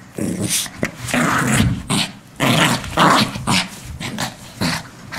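Small Maltese–Yorkshire terrier mix growling in a string of short, irregular bursts while tugging on a rope toy in play.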